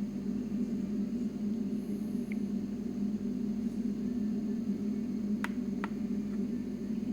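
Steady machine hum with two sharp clicks a little after five seconds in.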